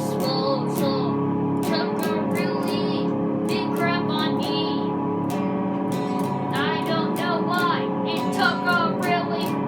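A young boy singing over steady backing music with held chords, in short sung phrases with a longer pause about midway.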